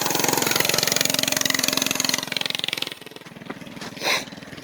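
Small single-cylinder gas engine of a go-kart or scooter running close by, rising in pitch as it revs, then dropping away sharply about three seconds in. A brief burst of noise follows near the end.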